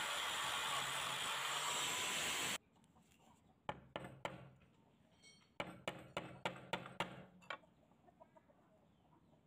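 Angle grinder grinding rust off old steel scissors, a steady loud grinding hiss that stops abruptly about two and a half seconds in. Then come sharp metallic clicks and taps as the rusty scissors are handled, in two clusters.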